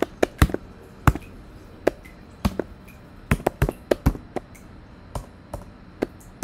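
Typing on a computer keyboard: single sharp key clicks at an uneven pace, with a quick run of several keystrokes around the middle.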